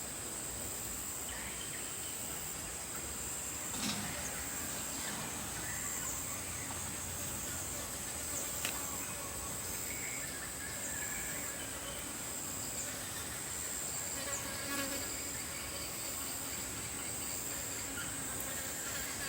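Insects chirring steadily at a high pitch in the background, with a couple of faint clicks or knocks.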